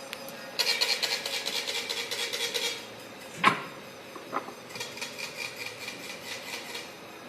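Vacuum leak tester working through a test cycle: a pulsing hiss of air for about two seconds, a single sharp clack, then a second, quieter pulsing hiss.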